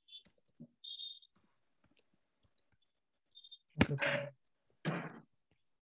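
Computer keyboard being typed on: light, irregular key clicks. Two short, louder voice-like sounds break in about four and five seconds in.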